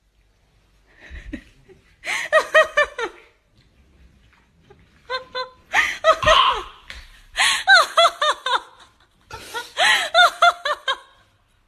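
A person laughing in bouts of quick repeated giggles: faint at first about a second in, then four loud bursts of about a second each with short pauses between.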